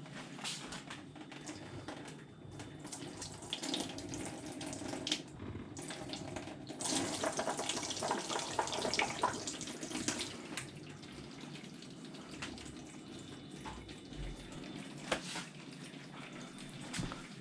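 Water running from a tap into a sink, heavier for a few seconds in the middle, with scattered clicks and knocks.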